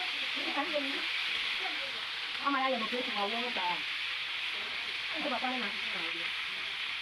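Food frying in hot oil in a large cooking pot, a steady sizzle, with people talking over it.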